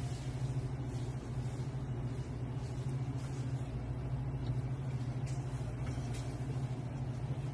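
A steady low machine hum runs throughout, with faint ticks now and then.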